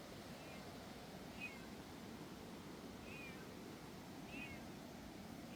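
Steady hiss of running water from a mountain stream, with short high-pitched animal calls chirping about five times, roughly a second apart.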